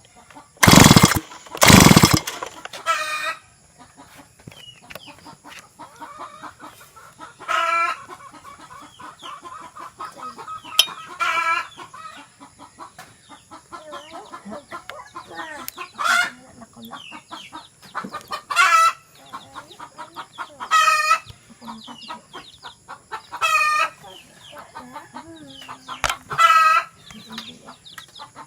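Chickens calling over and over, a pitched call about every two to three seconds. About a second in there are two very loud short blasts of noise, a second apart.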